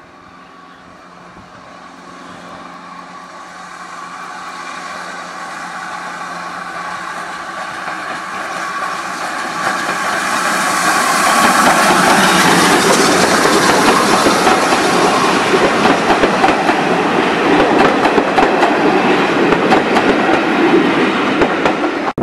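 GWR 5600 class 0-6-2T steam tank locomotive No. 5619 and its coaches approaching and passing close by. The sound grows steadily louder over about twelve seconds, then stays loud as the train runs past, with the wheels clicking over the rail joints.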